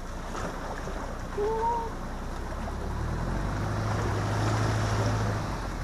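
A 1999 Subaru Forester's flat-four engine pulling the car into a muddy water hole, with water splashing and sloshing around it. The engine note strengthens and holds about three seconds in. A brief squeak is heard at about one and a half seconds.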